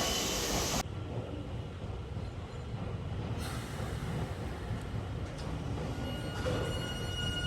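Electric commuter train running through the station: a loud rushing noise drops away suddenly about a second in, leaving a steady low rumble, and a steady high-pitched whine joins near the end.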